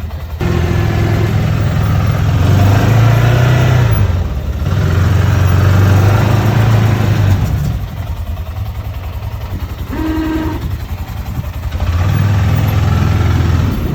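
Arctic Cat side-by-side's engine revving hard under load as its front blade pushes into packed snow, with a short dip in the middle. Its revs then ease off for a few seconds and climb again near the end.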